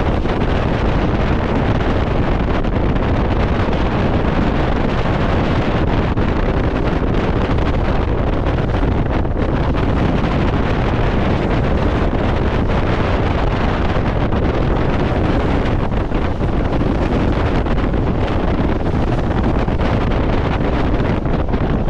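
Wind buffeting the microphone over the steady rush and spray of water along the hull of a 60-foot Symbol motor yacht running through choppy seas.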